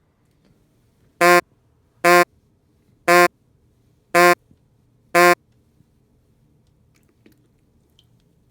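Microwave oven signalling the end of its cooking cycle: five short buzzy beeps, about one a second.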